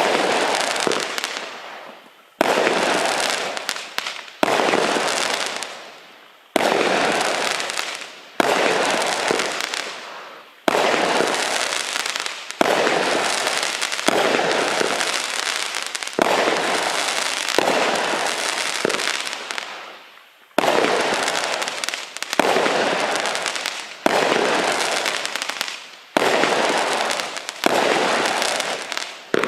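Stingray consumer firework barrage (cake) firing shot after shot, about one every two seconds. Each shot is a sharp burst followed by a noisy crackle that fades away over a second or two.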